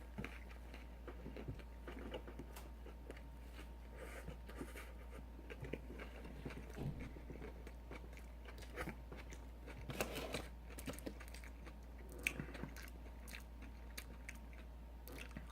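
Close-miked chewing of a mouthful of burger: irregular wet clicks and small crunches, with a louder burst of chewing about ten seconds in. A steady low hum lies underneath.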